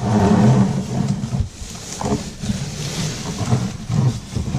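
Cardboard box being handled, its flaps rubbing and scraping, with a few knocks.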